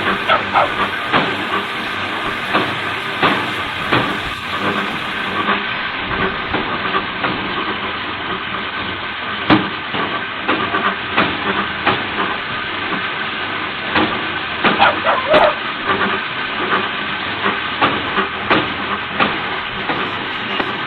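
Steady hissing machinery noise with frequent sharp knocks and cracks throughout, bunched together near the middle.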